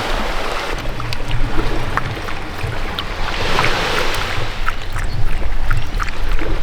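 Ocean waves washing and surging along a rocky shore, with wind buffeting the microphone and small scattered splashes and clicks.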